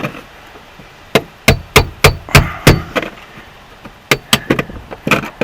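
A series of sharp knocks of a tool striking metal: about seven evenly spaced strikes, roughly three a second, starting about a second in, then a pause and a quicker run of about six near the end.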